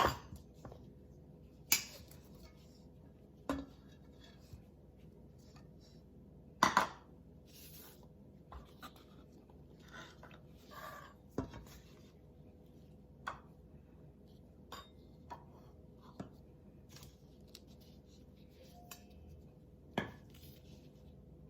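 Irregular knocks, taps and soft scrapes of kitchen utensils as avocados are cut open and mashed, with a faint steady hum underneath. The loudest knocks fall about two seconds in, about seven seconds in and near the end.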